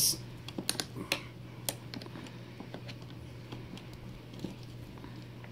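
Light clicks and taps from a Traxxas X-Maxx differential and drive shaft being handled and turned by hand. They cluster in the first second or so, with a few sparse ones after, over a faint steady hum.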